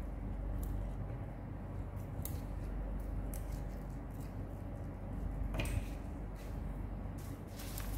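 Fresh arugula (gergir) stems being snapped and pinched off by hand: scattered crisp snaps with leaf rustle, the loudest a little past halfway.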